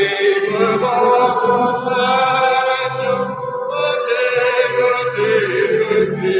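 A closing hymn sung at the end of Mass, led by a man's voice over the church microphone, in phrases of long held notes.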